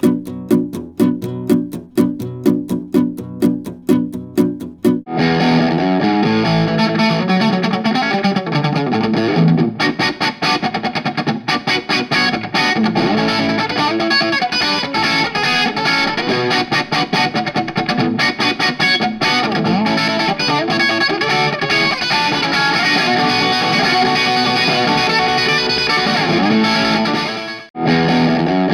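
Acoustic guitar picked in steady strokes, about two or three a second. About five seconds in it gives way to a distorted electric guitar playing continuously, with a brief gap near the end.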